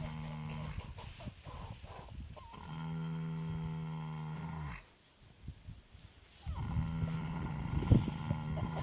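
A horse snoring: long, droning snores held at a steady pitch, each lasting a couple of seconds, with a short quiet gap about halfway through before the next one starts.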